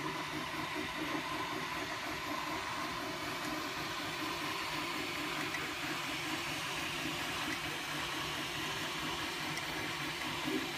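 MakerBot desktop 3D printer running a print: its stepper motors buzz in quick, shifting tones as the extruder head moves back and forth, over the steady hiss of the cooling fans.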